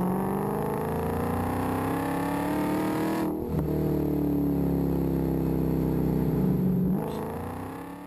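Car engine accelerating, its pitch rising steadily. About three seconds in it drops back, as at a gear change, then climbs again before fading out near the end.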